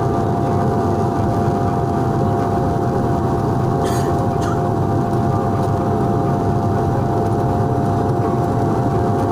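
Steady cabin drone of a turboprop airliner on approach with its landing gear down: engine and propeller noise with a steady hum running through it. Two brief, faint clicks come about four seconds in.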